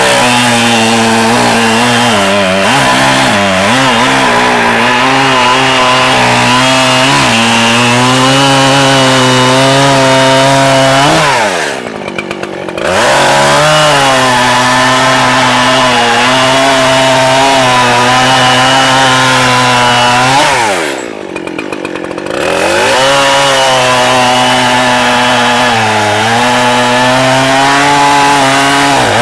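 Echo CS-7310P two-stroke chainsaw running at full throttle while cutting wood, its pitch dipping and wavering as the chain loads in the cut. Twice, a little before halfway and again about two-thirds of the way through, the throttle is let off and the engine falls to idle for about a second before revving back up.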